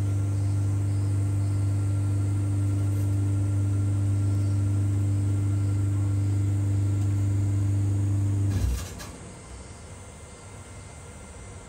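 A steady low machine hum with a few even overtones, which cuts off suddenly about eight and a half seconds in with a brief knock, leaving a faint hiss.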